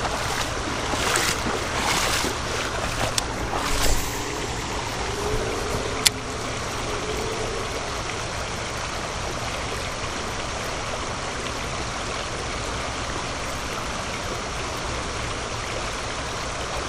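Steady rush of a river riffle, water running fast over shallow rocks. There are a few brief louder surges in the first four seconds and a single sharp click about six seconds in.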